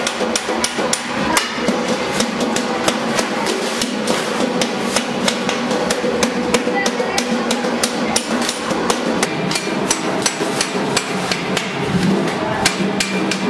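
Long-handled hand shears cutting stainless steel sheet: quick, sharp metallic clicks several times a second, over a steady low hum.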